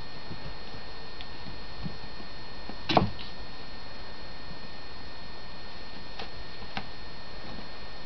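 A kitten playing with a rope in a padded round pet bed: a few soft ticks and taps, with one sharper knock about three seconds in, over a steady background hiss.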